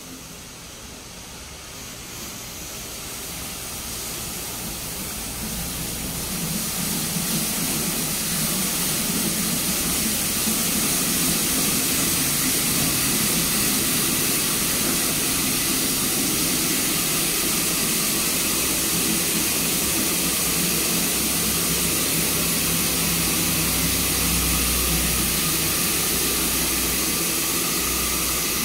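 High-pressure water spray from a Petit Accutrac 360-I touchless car wash hissing against the car. It grows louder over the first ten seconds or so, then holds steady with a low hum underneath.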